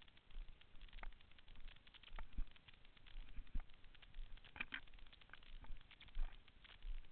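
Footsteps walking on a dry, leaf-littered dirt trail: irregular crunching and light clicks, with a soft low thump at each step, roughly two a second.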